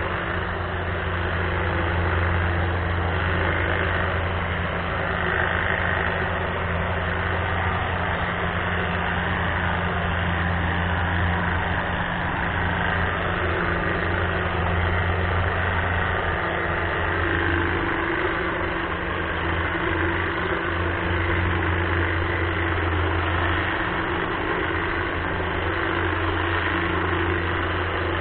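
Greenworks battery-powered hedge trimmer running steadily, its electric motor and reciprocating blades giving a continuous low hum.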